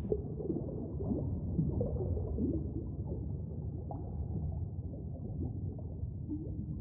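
Muffled underwater ambience: a steady low rumble with bubbling and many short, irregular squeaky glides, all dull and without any high end.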